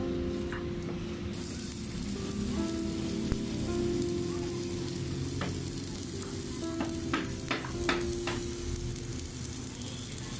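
Stick (shielded metal arc) welding of steel spokes to a wheel hub: the arc sizzles and crackles steadily, with a steady hum beneath it. A few sharp cracks of spatter come about seven to eight seconds in.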